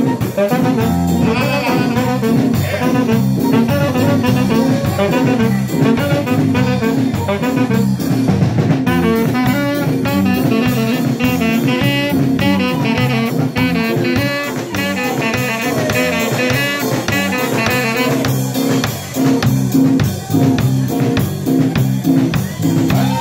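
Live band playing an instrumental passage: a drum kit keeping a steady beat under keyboard and electric guitar, with a sustained melody line over the top.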